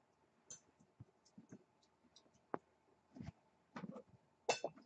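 Young kittens moving about on a fleece blanket: scattered soft clicks and rustles from paws and bodies, with a few louder short sounds in the second half, the loudest near the end.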